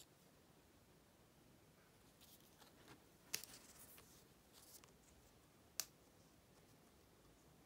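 Near silence with faint handling of card and paper merchandise: soft rustles and two short, sharp clicks, one about three seconds in followed by a brief crackle, and another about six seconds in.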